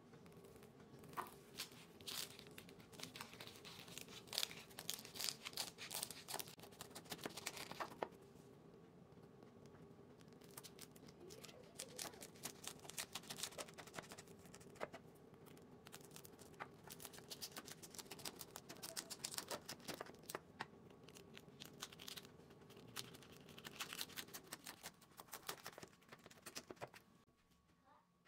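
A chef's knife cutting through the crisp, oven-baked pastry-sheet crust of a mutabbaq in a metal baking pan. It gives dry, quick crackling and crunching in several runs, with short pauses between the cuts.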